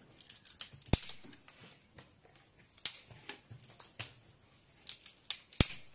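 Dry firewood sticks snapping and cracking as they are broken by hand: a run of irregular sharp cracks, with two loud snaps about a second in and near the end.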